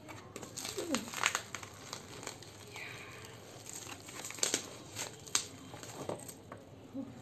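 Plastic bubble wrap and a cardboard shipping box crinkling and rustling as a parcel is unpacked by hand, in many irregular crackles.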